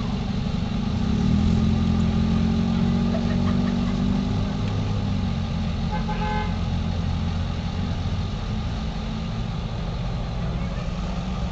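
Steam locomotive whistle: a long low blast starting about a second in and lasting a few seconds, then a short higher toot about six seconds in, over a steady low rumble.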